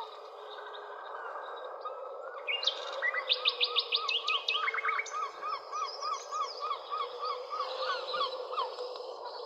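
Several birds calling over a steady background hiss. A few seconds in, one bird starts a quick run of high, rapid notes while another repeats a short chirp about twice a second.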